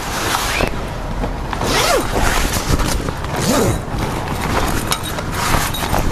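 Air annex canvas rustling and its zip running as the annex is hauled along the camper trailer by a cord, in four or five surging pulls.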